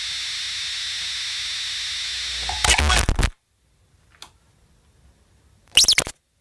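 Experimental electronic noise music. A steady hiss with a high held tone cuts off into a short loud burst about two and a half seconds in. It drops to near silence with a faint click, then another short burst with sliding pitches comes near the end.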